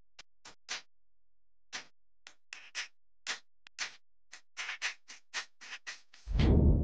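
Irregular sharp clicks, one to four a second, with a pause of about a second near the start. A loud, full-range burst cuts in near the end.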